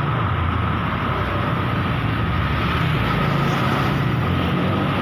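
Motor vehicle running steadily while driving along, a continuous engine rumble mixed with road and wind noise and a faint steady whine.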